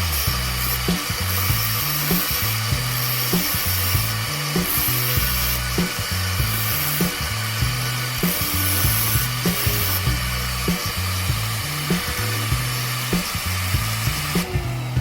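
Steady abrasive grinding of a steel drill bit being sharpened, under background music with a steady beat and bass line.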